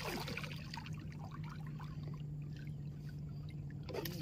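Water splashing and trickling: a splash at the start, then small drips and trickles.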